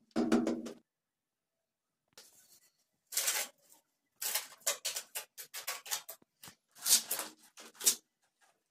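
A ceramic wall tile tapped into its cement mortar bed with a quick run of knocks, then cement mortar scraped and patted onto the back of the next tile in short, irregular strokes.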